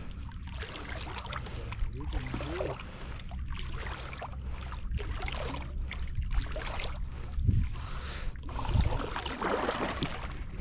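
Cast net being hauled in by hand over the bow of a canoe, water sloshing and dripping off the mesh, over a steady low rumble.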